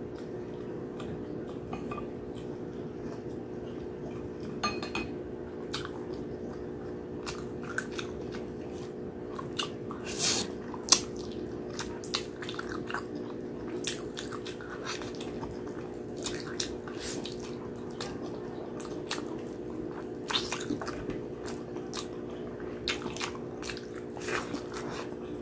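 Close-up chewing and lip-smacking while eating braised pork hock and rice by hand: wet smacks and sharp clicks that come irregularly, over a steady low hum.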